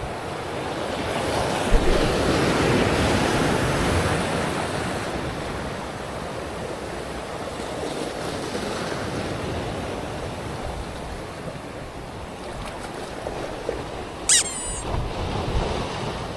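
Waves washing on the shore with some wind, one wave swelling louder a couple of seconds in. Near the end there is a short, sharp, high-pitched sound.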